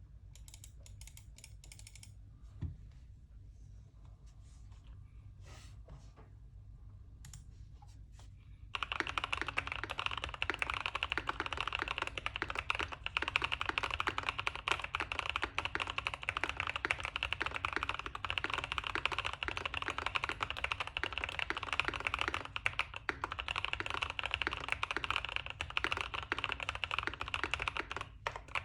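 Fast, continuous typing on a KBD67MKII mechanical keyboard with Gazzew Boba U4T tactile switches (62 g, lubed with Krytox 205g0) on a PLA plate, with plate and PCB foam in the case, giving a deep, thocky keystroke sound. A few faint clicks come first, and the steady stream of keystrokes starts about a third of the way in.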